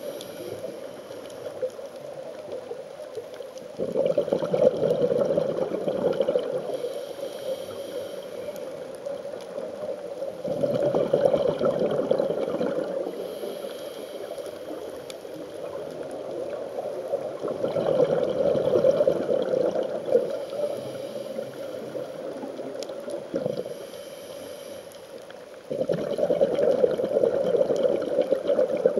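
Scuba regulator exhaust heard underwater: the diver's exhaled breath bubbling out in rushes about every seven seconds, four times, with quieter breathing between them.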